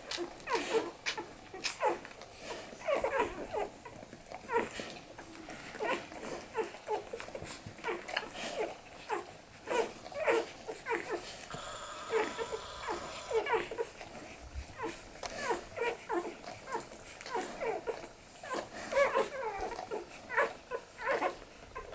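Newborn Australian Shepherd puppies squeaking and whimpering while they nurse, a steady stream of short, high squeaks.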